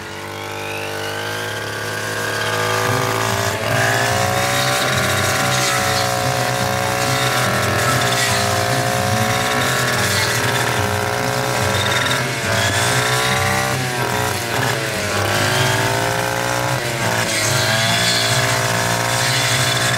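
Yamamoto 260 two-stroke brush cutter running near full throttle, revving up over the first couple of seconds and then held high. Its pitch sags briefly several times as the blade bites into thick, tall grass stems, then recovers.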